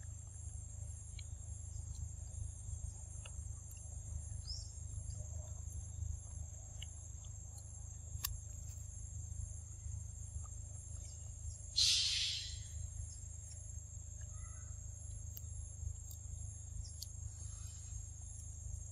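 Steady high insect drone with a pulsing trill above it, over a constant low rumble, with a few faint short chirps. About twelve seconds in there is a short, loud, harsh hissing burst.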